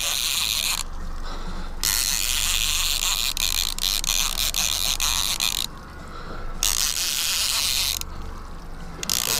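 Fishing reel being cranked to bring a hooked grouper up from deep water: a steady mechanical whir and rasp of the reel's gears, in spells broken by three short pauses, over a steady low hum.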